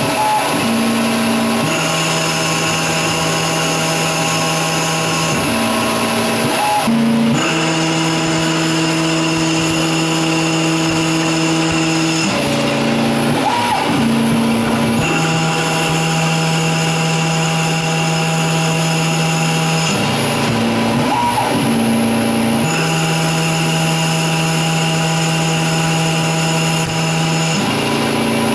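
Grizzly G0602 CNC lathe cutting aluminum tubing under flood coolant. Its motors give a steady whine of several tones that shift to new pitches as the tool makes repeated cutting passes and returns, with a short rising glide at each change. The cycle repeats about every seven seconds.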